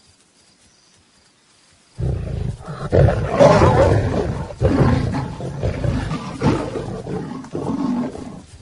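Lions fighting: a sudden outburst of roaring and snarling breaks in about two seconds in, after a quiet start, and goes on in repeated loud bursts.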